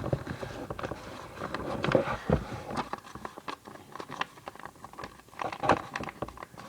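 A sheet of copy paper being folded in half by hand, rustling and crinkling with irregular soft taps and scrapes as the crease is pressed down.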